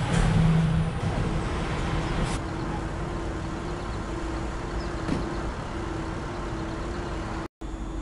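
A passenger train rumbling over a steel bridge, fading out within the first couple of seconds. Then a steadier, quieter hum with a held tone that breaks off now and then, from a diesel light-rail train running at a station.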